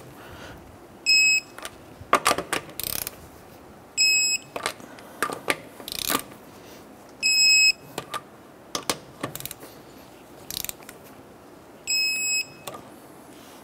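Electronic torque wrench tightening lug nuts to 100 foot-pounds: four short, high, pulsing beeps a few seconds apart, each the signal that a nut has reached the set torque. Ratchet clicks come between the beeps as the wrench is swung back.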